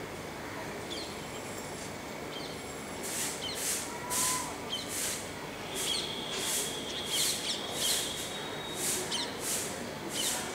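Outdoor ambience with small birds chirping over a steady background hum. From about three seconds in, a short harsh hissing sound repeats every half second or so.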